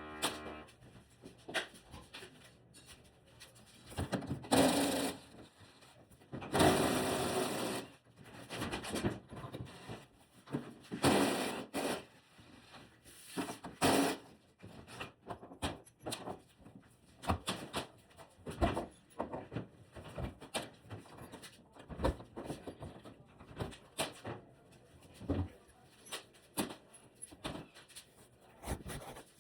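Irregular knocks and clicks of hands and tools working on a washing machine and dryer, with a few short bursts of harsh noise, the longest about seven seconds in.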